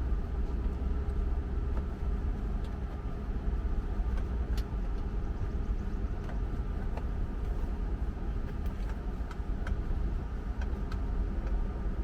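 Steady low hum with scattered light clicks and taps from the lower-anchor connectors of a child car seat being handled and clipped in.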